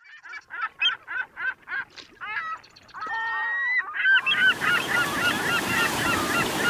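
Birds calling in a rapid series of short calls, several a second. About four seconds in, the wash of small waves breaking on the shore comes in suddenly, and the calls carry on over it.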